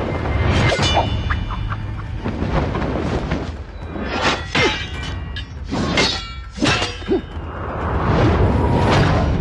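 Fight-scene sound effects over dramatic background music: a string of sharp weapon hits and swishing swings, clustered in the middle, with a swelling rush near the end.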